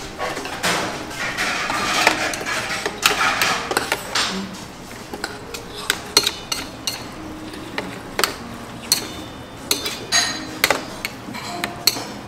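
Metal chopsticks mixing bibimbap in a metal bowl, making irregular clicks and knocks as they strike the bowl's sides and rim.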